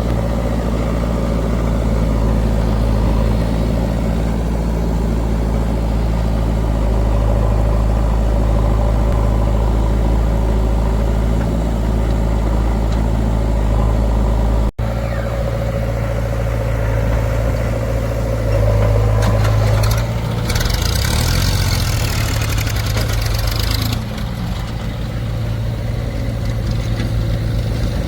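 Diesel engines of a backhoe loader and a tractor running steadily at work. A loud hiss lasts about three seconds, a little past the middle.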